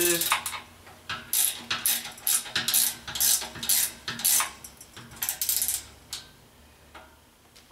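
Hand ratchet wrench clicking in quick strokes as a mounting bolt is tightened down on a compressor pump. The clicks come in short groups and stop about two seconds before the end.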